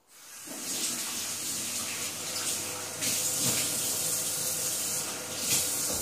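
Kitchen tap running steadily while hands are washed under it, starting about half a second in.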